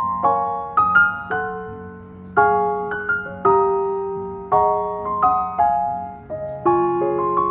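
Background piano music: calm, slow chords and single notes struck and left to ring.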